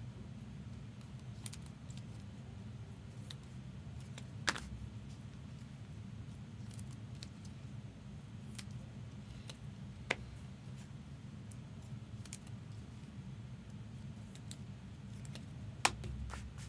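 Trading cards in plastic sleeves and rigid top loaders being handled: light plastic rustling and ticking, with a few sharp clicks, the loudest near the end, over a steady low hum.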